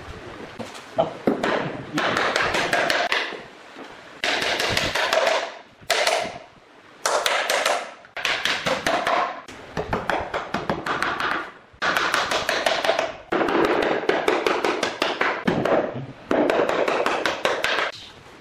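Claw hammer tapping on hardwood stair boards, driving and aligning the pieces in repeated runs of quick taps, each run about a second long, with single knocks between.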